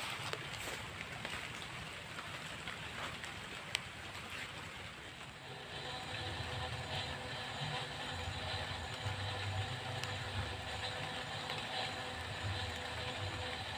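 Rain falling, with scattered drop ticks and one sharp click about four seconds in. About five and a half seconds in, a motor engine starts running steadily with an even pitch and carries on over the rain.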